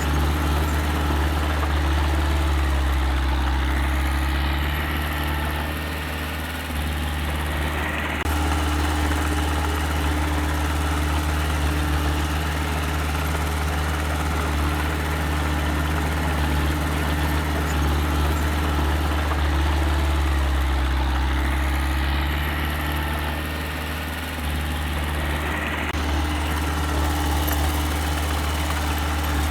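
Engine of a small earthmoving machine running steadily at a low, even drone, easing off briefly twice.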